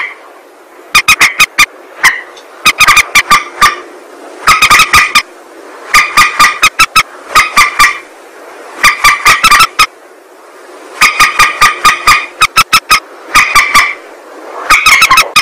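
Lure-call recording of a mandar (rail) calling: rapid runs of loud, sharp, clipped notes, each run of about four to eight notes, repeating every second or so over a steady hiss.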